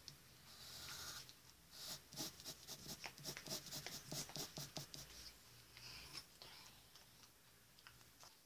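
Pencil scratching on paper in a run of quick, short strokes, faint. The strokes come thickest from about two seconds in to about five seconds in, with softer strokes before and after.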